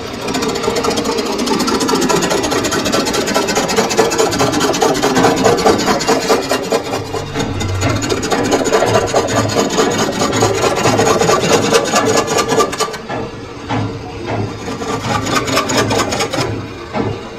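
Metal lathe cutting a spinning metal stove-frame ring: a harsh, steady rasping scrape of the tool on the metal with a fine chattering texture. The cut eases about thirteen seconds in, picks up again, then fades near the end.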